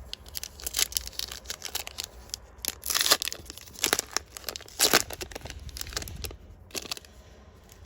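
Foil trading-card booster pack wrappers being torn open and crinkled: a rapid run of crackles, with louder tears about three and five seconds in.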